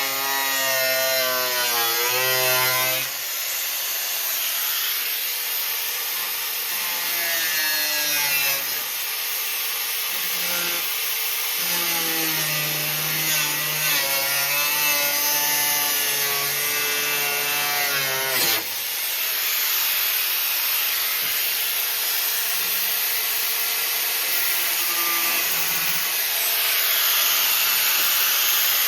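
Power tool running on steel tubing: a continuous harsh hiss with a motor tone that drops and climbs in pitch as the tool is loaded and eased off, with a sharp break about two-thirds of the way through.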